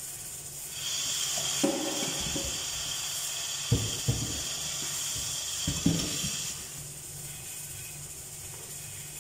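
A steady hiss that starts about a second in and stops after about six seconds, with a few short knocks and clatters during it.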